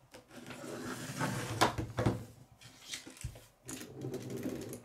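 A plastic K'nex toy cement mixer being rolled back and forth on a wooden tabletop: its wheels and plastic parts rattle and clack, with a few sharper knocks.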